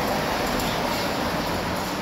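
Airbus A330-243 jet engines (Rolls-Royce Trent 700s) passing overhead on approach: a steady, even rush of jet noise, slowly fading.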